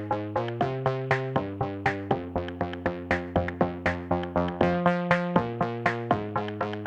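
Electronic background music: synthesizer chords that change about once a second over a steady beat of about four strikes a second.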